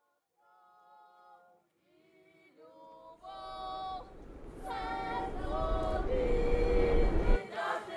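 A group of voices singing held notes, choir-like, fading in from faint to full, with a low rumble joining about three seconds in.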